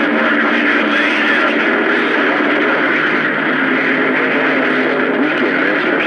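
CB radio speaker on channel 28 giving out loud, steady static and band noise from skip reception, with faint warbling signals under the hiss.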